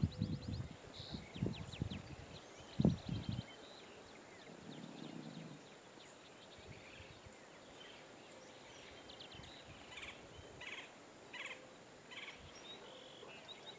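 Faint bird chirps and quick trills, with several low thumps in the first three seconds or so.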